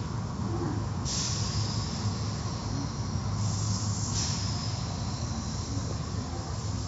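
Car wash equipment running: a steady low rumble, with a high hiss that comes in suddenly about a second in and drops away around four seconds in.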